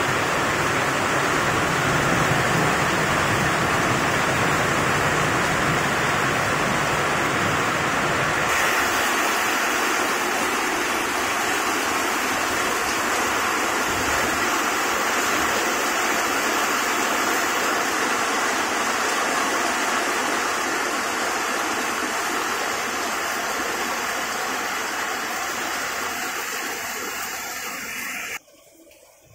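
Heavy rain pouring down, a loud, steady, even hiss. About eight seconds in, the sound loses its low rumble and turns brighter. It drops off sharply just before the end.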